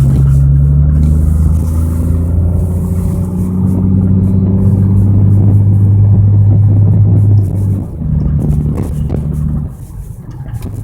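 A strange, loud, low droning hum from a Mercedes-Benz S124 estate, a sound that only happens when the car is cold. It holds a steady pitch, shifts down at about seven and a half seconds and stops near the ten-second mark.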